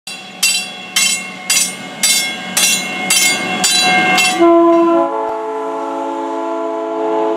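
A warning bell clangs about twice a second for some four seconds. Then the departing South Shore Line electric train sounds its horn, a steady chord of several notes held for about three seconds.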